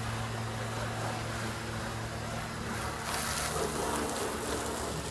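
Garden hose spraying water onto a car's hood and headlights, rinsing off toothpaste polish: a steady hiss of spray that gets brighter about three seconds in. A steady low hum runs underneath.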